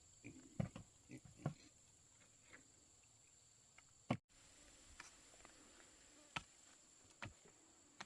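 Faint steady high-pitched insect drone with scattered soft knocks and rustles.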